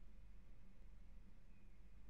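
Near silence: indoor room tone with a faint, steady low hum.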